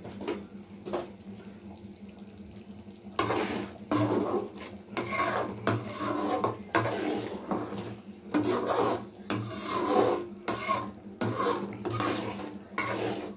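Metal ladle stirring and scraping around a large aluminium kadai of thick, simmering tamarind paste, in repeated uneven strokes that start about three seconds in, over a steady low hum.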